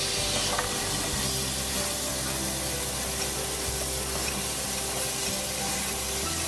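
Steady hiss of escaping steam from a steam locomotive moving slowly, with low sustained tones underneath.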